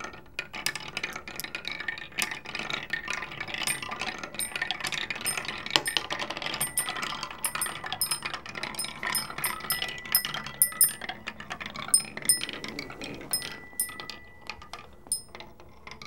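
Several marbles clattering down the wooden zigzag ramps of a homemade marble machine in a fast stream of clicks, while a metal chime tube rings one high note again and again. The clatter thins out near the end as the marbles come to rest in the tray.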